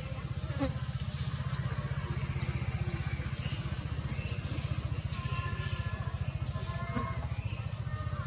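A small engine running steadily, a rapid even low pulsing, with scattered short higher chirps and calls over it.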